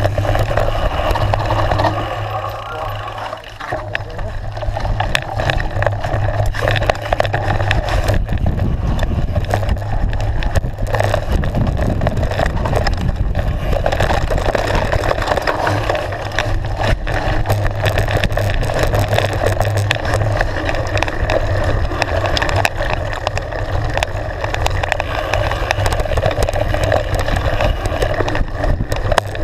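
Mountain bike ridden fast down a dirt trail: a constant wind rumble on the camera microphone with the tyres rolling over the dirt and many small knocks and rattles from the bike over bumps. It eases briefly about two seconds in.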